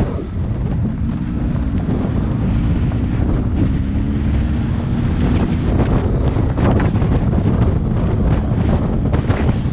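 Wind buffeting the microphone of a camera moving along a gravel road, over the crunch and rattle of tyres rolling on loose gravel.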